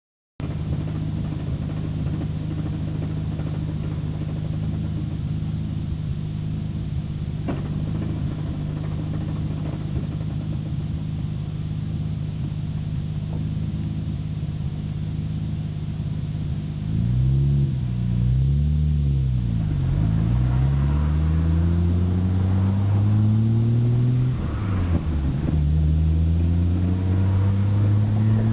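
Nissan Skyline GT-R R34's RB26DETT twin-turbo straight-six idling steadily with a gearbox rattle from its Getrag six-speed and Nismo clutch. The owner finds the rattle abnormally loud, and a transmission oil change has not cured it. After about 17 seconds the engine revs rise and fall, then climb as the car accelerates, with a brief drop like a gear change about three-quarters of the way through.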